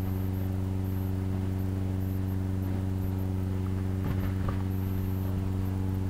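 Steady low electrical hum with a stack of evenly spaced overtones, unchanging in level. A few faint soft sounds come about four seconds in.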